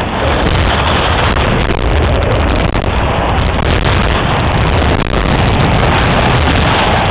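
Loud, steady rush of wind buffeting the microphone, with the hiss and scrape of sliding on snow during a fast run down a ski slope.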